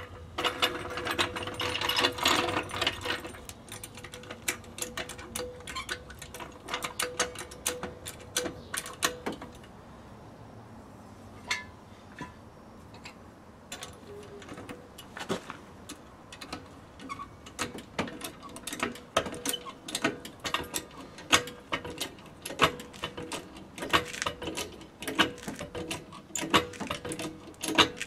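Steel hydraulic trolley jack being rolled over concrete and worked into position, its caster wheels and handle clattering in quick irregular clicks and rattles, heaviest at the start and again in the second half.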